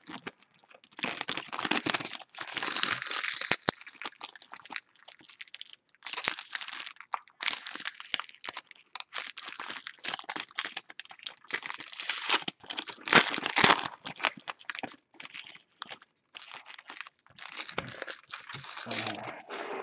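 Foil trading-card pack wrappers crinkling and tearing as packs are ripped open by hand, in irregular crackly bursts.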